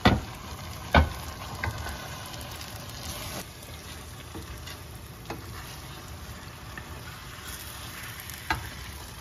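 Marinated chicken and spice masala sizzling in oil in a pan while being stirred, with a steady frying hiss. The stirring spoon knocks sharply against the pan a few times, loudest near the start and about a second in.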